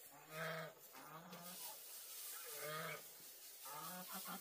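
Pigs grunting: a series of about five short, pitched grunts.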